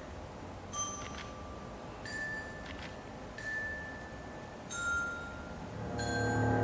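Background music: single bell-like chime notes struck one at a time, about one a second, each ringing briefly. Fuller sustained music with low held notes swells in near the end.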